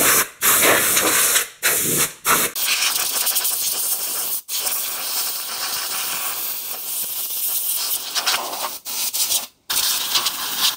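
Compressed-air blow gun hissing as it blows dirt off the top of a fuel tank: several short blasts, then a long steady blast broken by a few brief cutoffs.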